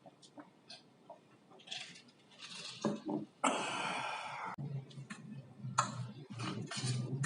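Close-miked eating of pancit canton noodles: light utensil clicks against a plate and mouth noises, with a loud noisy burst about a second long starting about three and a half seconds in. A low hum joins about five seconds in.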